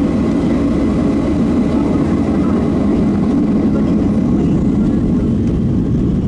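Cabin noise inside a Boeing 737-700 taxiing: the CFM56 turbofans' steady low rumble at taxi power, with a faint high whine held steady over it.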